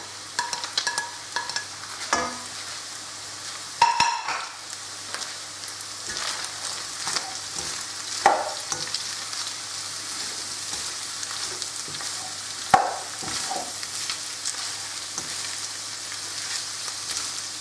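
Carrot and green bean strips sizzling in oil in a hot wok with chicken and onion, stirred with a slotted spatula. The spatula scrapes and taps against the pan now and then, loudest about four seconds in, over a steady sizzle.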